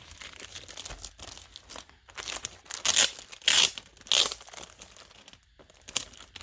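Packaging being handled and pulled open by hand: irregular crinkling and tearing rustles, loudest in a few bursts around the middle.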